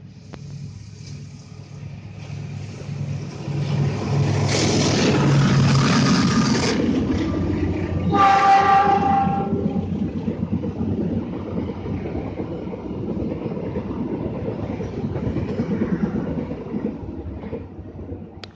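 Passenger train hauled by a CC206 diesel-electric locomotive passing: engine and wheel rumble builds as it approaches, with a short horn blast about eight seconds in. The rumble of the carriages carries on and fades near the end.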